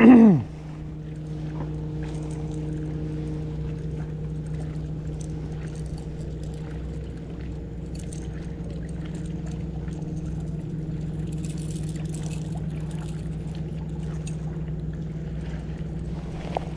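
Boat motor running with a constant, even hum that holds one pitch throughout. A brief loud sound falling in pitch comes at the very start.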